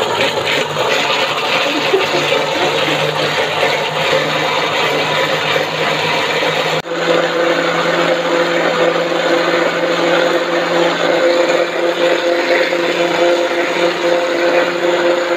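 Countertop electric blender running steadily, grinding a thick red spice paste with a little added water. The motor's sound breaks off for an instant about seven seconds in, then carries on with a steadier hum.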